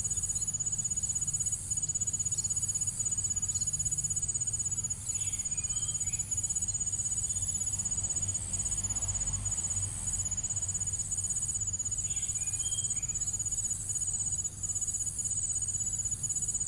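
Crickets trilling continuously in a dense, high, rapidly pulsing chorus, with a few short lower chirps now and then and a low rumble underneath.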